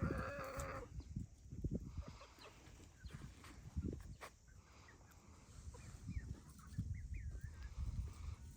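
Farm animals calling: a drawn-out, wavering call in the first second, then a few short, curling calls about seven seconds in, over low rumbling and knocking noise.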